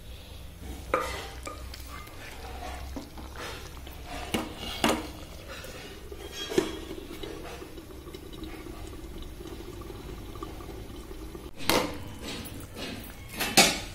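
Cookware knocks: a wooden spatula and a glass lid clacking against a kadai, about six sharp knocks with the two loudest near the end, over the soft bubbling of thick dal simmering.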